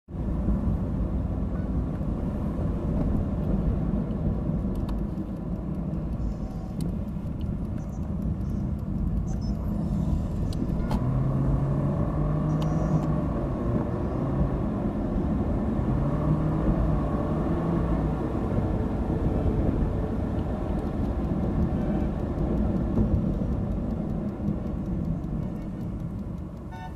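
Steady low rumble of motor traffic. A low engine drone rises out of it briefly about eleven seconds in and again about sixteen seconds in.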